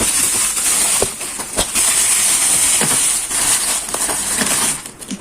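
Packaging rustling and crinkling loudly as a gift is handled and unwrapped, with a few sharp clicks. The noise eases off near the end.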